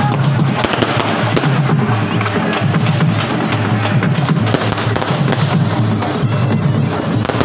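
Loud procession music with heavy drumming and a pulsing bass, sounding dense and continuous, with many sharp cracks running through it.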